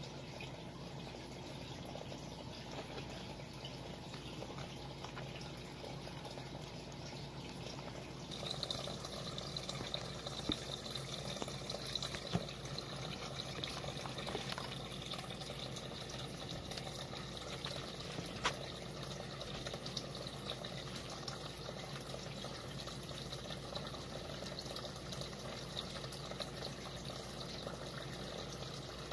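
Steady faint hiss, a little louder from about eight seconds in, when a faint high whine joins it, with a few sharp clicks.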